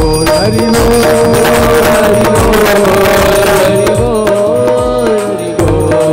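Devotional kirtan music: a chant sung in held, gliding notes over steady drum and percussion beats.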